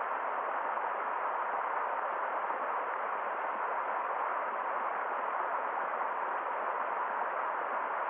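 Small forest stream cascading over rocks in a shallow waterfall, a steady rushing of water that holds an even level throughout.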